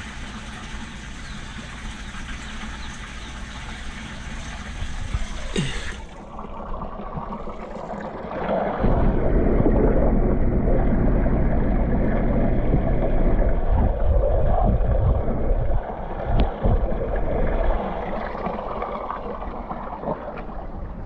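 Water running and splashing steadily, which stops suddenly about six seconds in. About two seconds later a loud, uneven low rumble starts and lasts about seven seconds.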